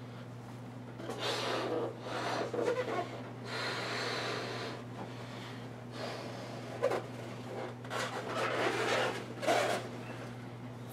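A man blowing up a balloon by mouth, with the balloon inside a latex cowl: several long, hard puffs of breath, with pauses for breath between them.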